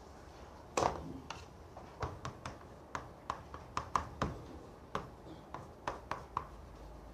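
Faint, irregular light taps and clicks, two or three a second.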